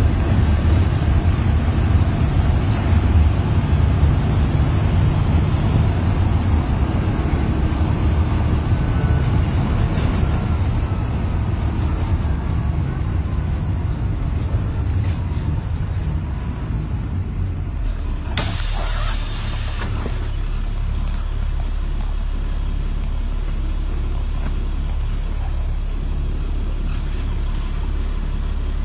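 2005 Thomas FS-65 school bus's diesel engine running under way, heard from inside at the front of the bus, easing off as the bus slows to a stop. About two-thirds of the way in comes a sharp hiss of air from the air brakes, lasting about a second and a half. After it the engine idles steadily.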